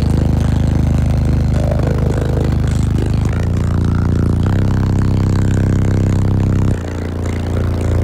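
A wall of fifteen 15-inch subwoofers playing loud, deep bass inside the vehicle cabin. The bass holds long low notes that change pitch a few times, and it drops off sharply near the end.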